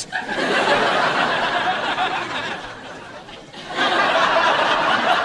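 Sitcom studio audience laughing, fading about three seconds in, then a second wave of laughter.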